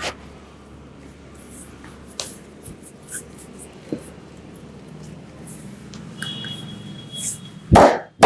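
Hands working over skin and hair in a barber's head and back massage: soft rubbing with scattered light taps, then two loud smacks close together near the end.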